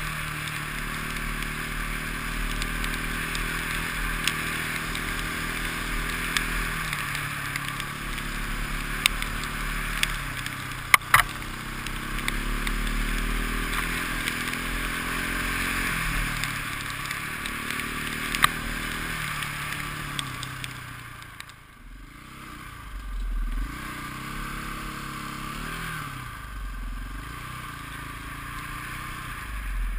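KTM enduro motorcycle engine running under way, its pitch stepping and gliding up and down with throttle and gear changes, over a steady hiss of wind. A few sharp clicks come around the middle, and about two-thirds of the way in the engine falls off briefly before picking up again.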